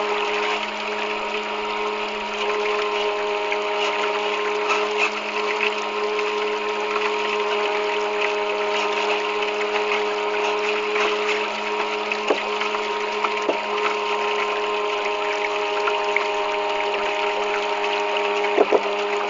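Homemade bait boat's electric propulsion motors running steadily, a constant whine over the hiss of water, picked up by a camera on board. A few short knocks come in the second half.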